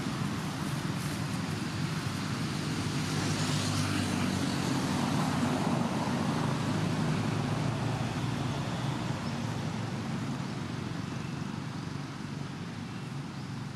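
Steady background rumble with an even hiss, swelling slightly in the middle and easing off toward the end.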